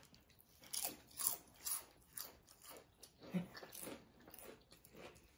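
Potato chips being bitten and chewed: a run of crisp crunches about two a second, loudest in the first two seconds, then softer chewing.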